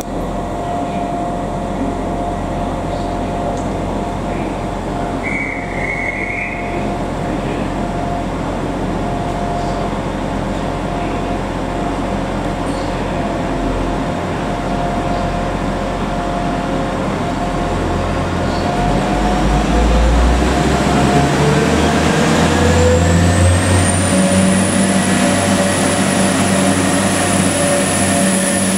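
Three-car Class 175 diesel multiple unit idling at the platform. About twenty seconds in its diesel engines rev up and it pulls away, the sound growing louder with a rising whine as it gathers speed. A brief high tone sounds about six seconds in.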